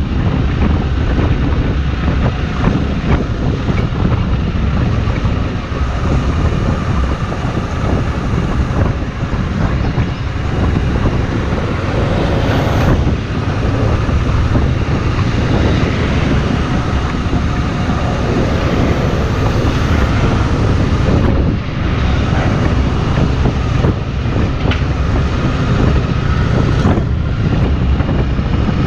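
Kawasaki VN2000's big V-twin engine running steadily under way, with steady wind rush over the microphone.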